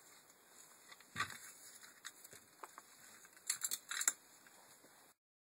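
Faint clicks and taps of the plastic and metal parts of a Land Rover Freelander MK1 rear window regulator being handled and fitted together by hand. There is one knock about a second in and a quick cluster of sharper clicks around three and a half to four seconds, over a low hiss. The sound cuts off to silence shortly before the end.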